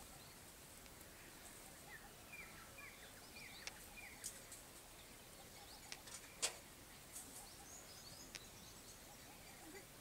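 Quiet outdoor background with a run of faint, short bird chirps about two to four seconds in, and a few scattered light clicks, the sharpest about six and a half seconds in.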